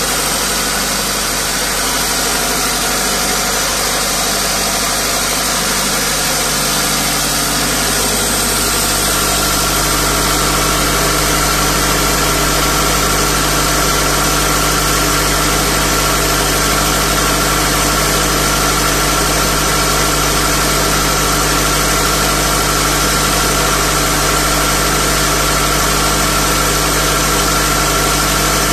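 Cummins 70 kVA diesel generator set running steadily at its governed 1500 rpm while carrying load, about 75 amps on each of its three phases. It gets slightly louder about eight seconds in, and a steady whine joins the engine note.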